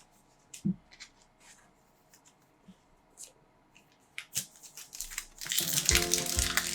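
Faint rustles and clicks of trading cards being handled. About five and a half seconds in, louder crinkling and tearing of a foil card-pack wrapper starts, with music under it.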